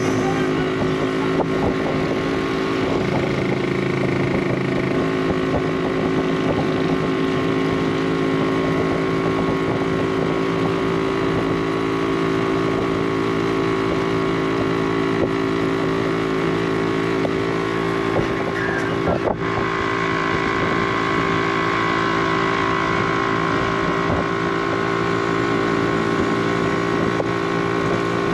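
Tuk-tuk engine running steadily as it drives along, its pitch shifting briefly a few seconds in, with wind noise on the microphone.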